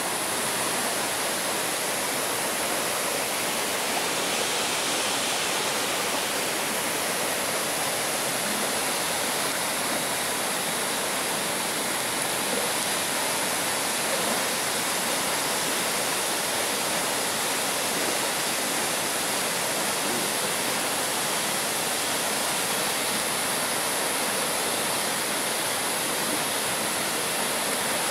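River water rushing steadily, an even hiss of flowing water with no breaks.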